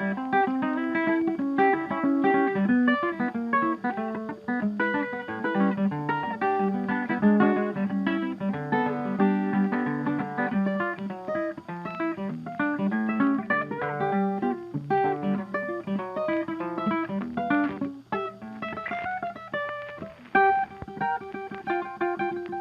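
Background music: a plucked guitar tune with quick picked notes.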